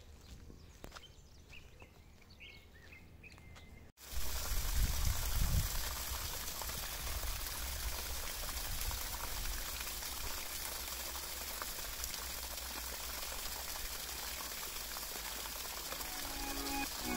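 Faint outdoor ambience with a few small bird chirps, then after a sudden cut about four seconds in, a steady rushing noise with a deep rumble underneath. Music begins to come in near the end.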